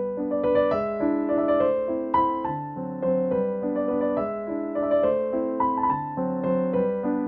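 Background piano music: a gentle melody of single notes over held lower notes, at a steady pace.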